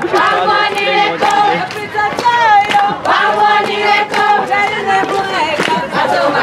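A crowd of guests singing and chanting together, with scattered sharp claps among the voices.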